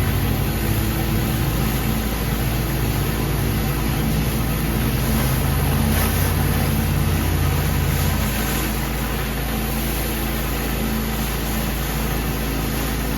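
Pressure washer engine running steadily under an even hiss; the low engine note changes about eight and a half seconds in.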